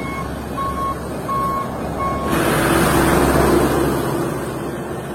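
A truck's reversing beeper sounds steady single-pitched beeps, about four of them evenly spaced in the first two seconds, over a low hum. The beeps then give way to a loud hiss that swells and slowly fades.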